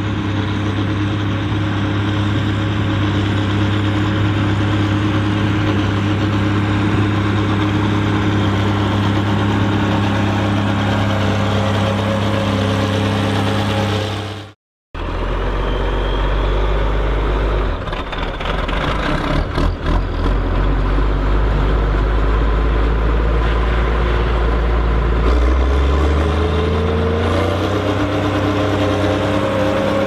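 Ford TW-30 tractor's turbocharged six-cylinder diesel running steadily under load while pulling a New Holland 4860S square baler. The sound breaks off for a moment about halfway through, a few knocks come a few seconds later, and the engine pitch rises near the end.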